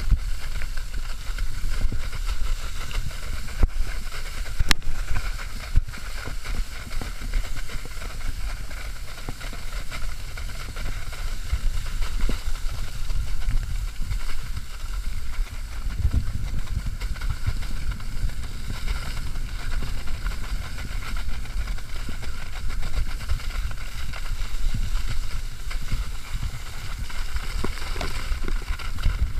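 Water skis planing fast across lake water, a steady rush of water and spray with a heavy wind rumble on the camera's microphone. A few sharp clicks come in the first six seconds.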